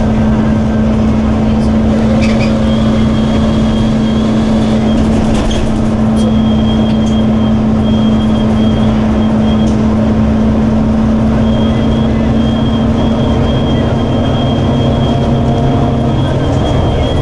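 Steady drone of a city bus's engine and road noise heard from inside the cabin while driving at an even speed, with a thin high whine that comes and goes.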